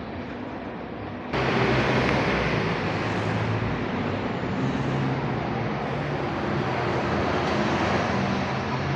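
City street traffic noise: vehicles running past, with low engine hum. A little over a second in it suddenly gets louder and fuller, as if a large vehicle has come close, and stays that way.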